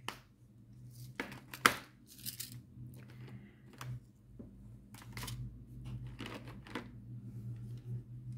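Small clear plastic storage pots and plastic zip bags of diamond-painting crystals being handled on a wooden table: scattered clicks and knocks, the sharpest about a second and a half in, with brief crinkling of plastic.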